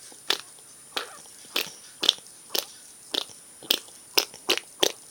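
A child making pretend fart noises: a series of about a dozen short, sharp pops, roughly two a second.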